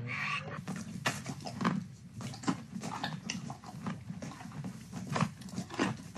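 Livestock moving about in a barn: irregular knocks and shuffling.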